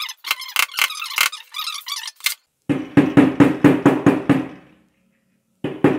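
A claw hammer tapping short lengths of wire flat on a workbench to straighten them. First comes a run of quick, light, sharp taps. After a brief break come heavier knocks with a dull thud, about five a second.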